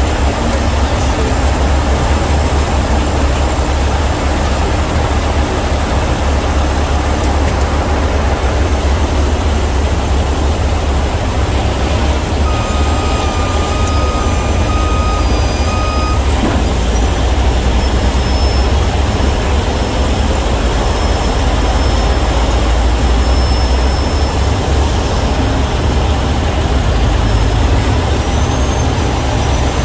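Heavy diesel truck engine running steadily with a deep rumble. About twelve seconds in, a steady high-pitched tone sounds for about four seconds.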